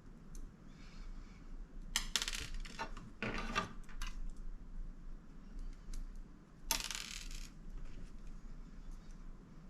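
Small metal parts clinking and rattling in three short bursts, about two, three and six and a half seconds in, with quieter handling noise between them.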